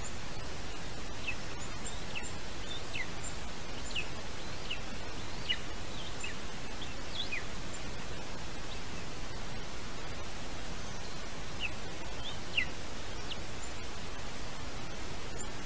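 Steady hiss with scattered short, high, downward-sliding bird chirps, bunched in the first six seconds and again around twelve seconds.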